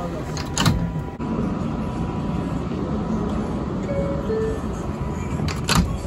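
Subway car door chime: a two-note falling ding-dong about four seconds in. The doors bang shut about half a second in and again near the end.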